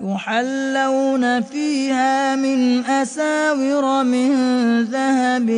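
A male reciter chanting the Quran in melodic tajwid style, holding long notes that turn and ornament in pitch, with only a couple of brief breaks.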